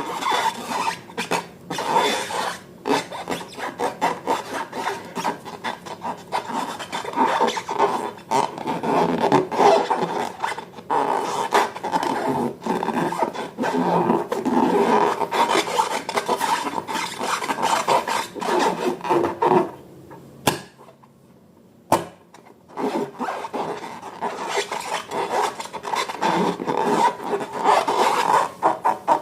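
Slime being mixed, a continuous sticky crackling and rubbing. It stops for about two seconds near the two-thirds mark, with two sharp clicks, then starts again.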